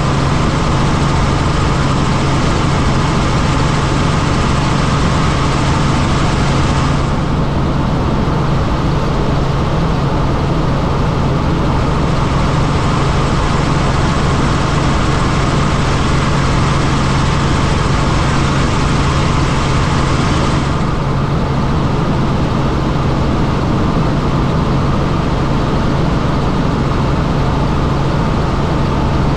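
Helicopter in flight: a loud, steady drone of turbine and rotor with a constant low hum underneath. The upper hiss dulls for a stretch from about seven seconds in and brightens again after about twenty seconds.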